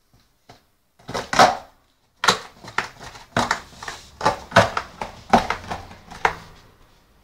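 A dog chewing and tearing cardboard: a run of sharp, irregular crunches starting about a second in.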